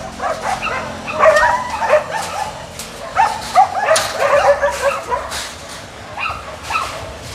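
Dogs barking and yelping: many short, sharp barks at different pitches, coming in quick bursts throughout.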